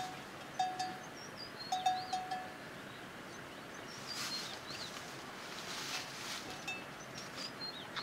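Rural outdoor ambience: small birds chirp in short, falling high notes throughout. A few short, clear, steady-pitched notes come in the first two and a half seconds, and there is a soft hiss around the middle.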